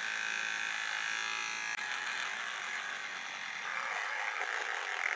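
Electric beard trimmer buzzing steadily as it is run over the beard; its tone turns rougher and less even about two seconds in.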